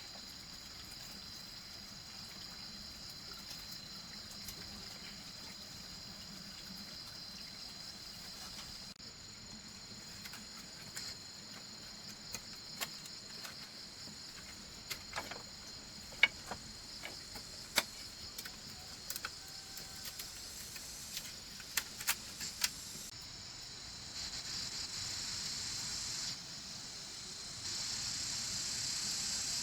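Steady high-pitched chorus of insects chirring, with scattered sharp knocks and clicks in the middle stretch. The chorus grows louder near the end.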